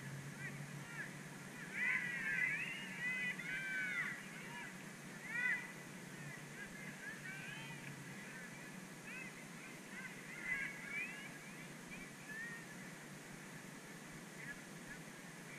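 A flock of birds calling, many short honking calls that rise and fall, bunched most thickly about two to four seconds in and again near the middle, over a faint steady hum.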